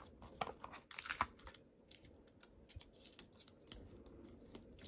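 Faint paper-craft handling: light ticks and rustles of card stock and of foam adhesive dimensionals being peeled off their sheet and pressed onto a card panel, with a small cluster of clicks about a second in.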